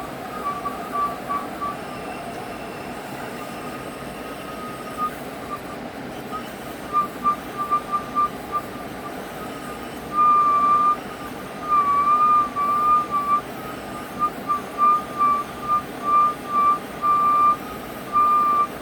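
HVAC system whistling over a steady rush of air: one high whistle note that starts and stops, breaking into short choppy pulses from about seven seconds in, with a couple of longer, slightly wavering notes around ten and twelve seconds.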